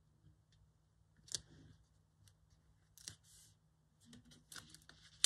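Scissors cutting paper: a few faint separate snips, then a quicker run of small cuts near the end.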